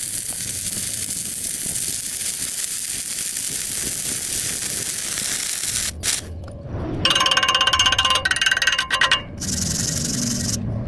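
Electric arc welding: a steady hissing crackle from the arc that breaks off about six seconds in. After it comes a burst of about two seconds with a whining tone in it, then a short hiss again near the end.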